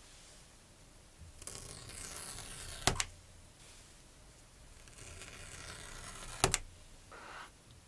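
Paper pull-tab tear strip on an Apple Watch box being ripped open twice. Each tear grows louder for about a second and a half and ends in a sharp snap, and a brief rustle follows near the end.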